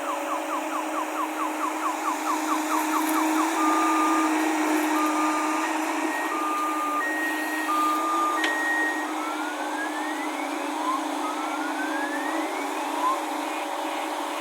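Electronic multi-tone reversing alarm on a heavy vehicle. It gives rapid falling chirps, about four a second, then alternating beeps on two pitches, then two rising whoops near the end. Under it a diesel engine runs with a steady drone.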